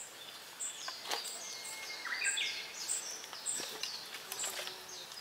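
Small songbirds calling: many thin, high-pitched short notes and short falling notes, with a stepped falling run of notes a little after two seconds in. A few light clicks sound around one second and three and a half seconds in.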